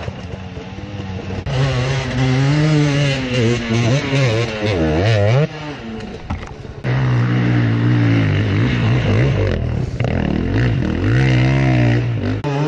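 Enduro dirt bike engines revving hard up and down on a steep dirt hill climb, the pitch rising and falling with each burst of throttle. The engine sound drops back briefly about five and a half seconds in, then picks up again.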